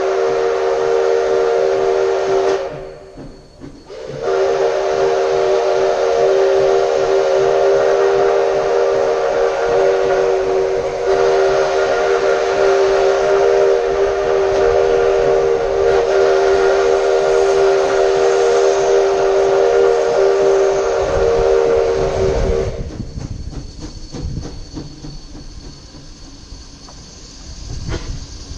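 Steam locomotive's chime whistle sounding several pitches at once: a short blast of about three seconds, then a long blast held for some eighteen seconds. After it stops, a low rumble of the approaching train.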